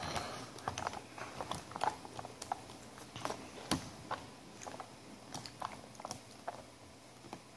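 Small plastic baby food tubs being handled and their peel-off lids opened by hand: scattered light clicks and crinkles at an irregular pace.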